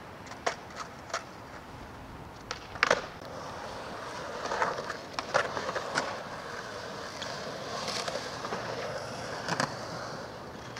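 Skateboard wheels rolling on concrete with a rushing sound, broken by sharp clacks of boards hitting the ground. The loudest is a close pair of clacks about three seconds in.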